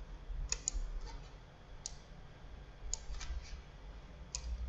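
Computer mouse clicking: about half a dozen sharp, irregularly spaced clicks, some in quick pairs, over a faint low hum.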